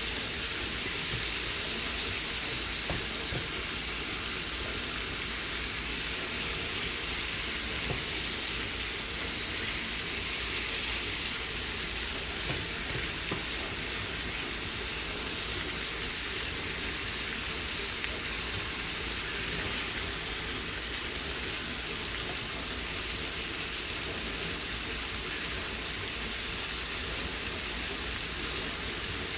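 Pieces of cooked chicken sizzling steadily in hot oil in a frying pan, sautéing with lime juice and mojito lime seasoning.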